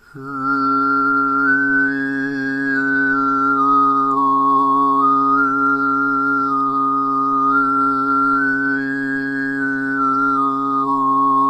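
A man overtone singing: one steady low drone note, with a single bright, whistle-like overtone stepping up and down above it to form a melody. The sung pitch does not change; the melody comes only from the mouth's resonance boosting different overtones, with the consonants of speech left out.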